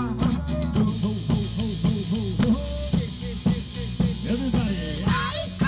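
Live band music: a steady rock beat on a drum kit over sustained bass notes and a moving melodic line.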